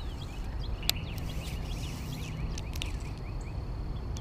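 Outdoor ambience: a steady low rumble of wind on the microphone, with a fast run of faint, short chirps from a small animal and a single sharp click about a second in.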